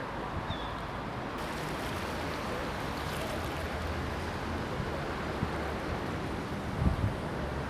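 Steady rush of wind and water noise out on the water, with a brief low thump about seven seconds in.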